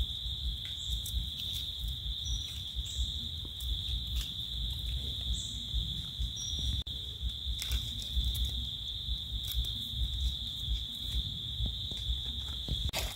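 Steady high-pitched insect drone, one unbroken buzzing tone, with a few faint light crackles from dry leaf litter.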